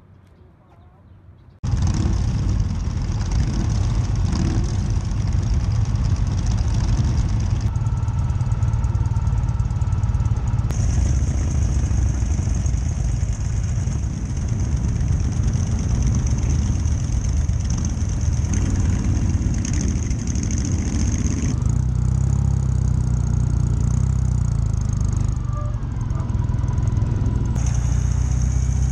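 Motorcycle engine running steadily while riding in a group procession, heard from a camera on the bike, with wind rushing past. It starts suddenly after a quiet second or so and changes tone abruptly a few times.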